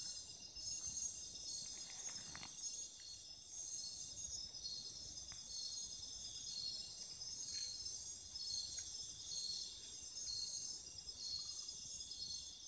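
Chorus of night insects trilling steadily, several high-pitched trills overlapping, one of them pulsing, with a faint rustle about two seconds in.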